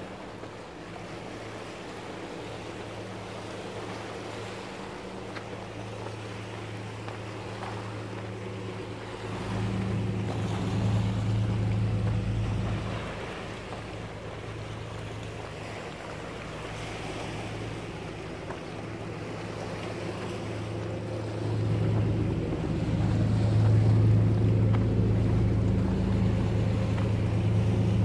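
A boat's engine runs with a steady low hum that swells louder twice: about ten seconds in, briefly, and again for the last several seconds. A hiss of wind and waves lies under it.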